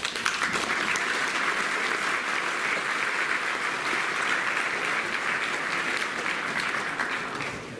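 Audience applauding: many hands clapping together, starting all at once and tailing off near the end.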